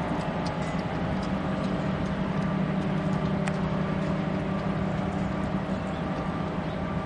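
Union Pacific GE C44-9W and C40-8W diesel locomotives running light, their V16 diesel engines a steady low drone as they approach.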